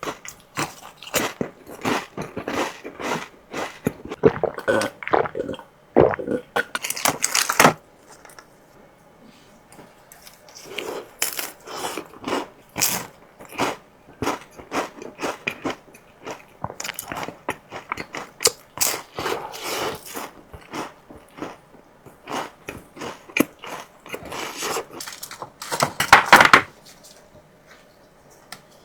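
Close-miked eating: crunchy bites and chewing in irregular runs of crackling clicks, with a short pause about eight seconds in. Near the end comes one brief louder noisy burst.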